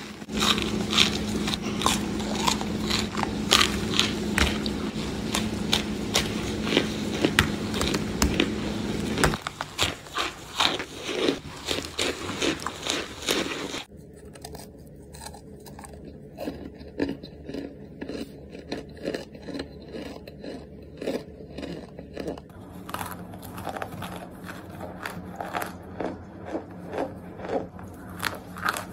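Close-up biting and crunching of chunks of cornstarch: rapid crisp crunches and crackles. The sound changes abruptly between spliced clips about 9 and 14 seconds in, and is quieter after the second cut.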